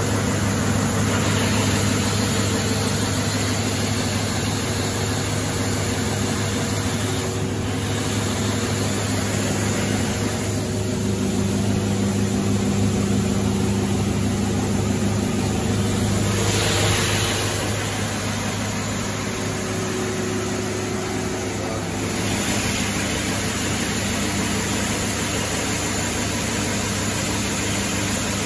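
Timesaver single-belt wide belt sander with a 20 hp motor running, a steady mechanical hum with the feed conveyor moving.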